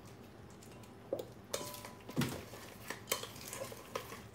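Metal spoon stirring chimichurri in a stainless steel mixing bowl, giving a handful of light, scattered clinks and scrapes.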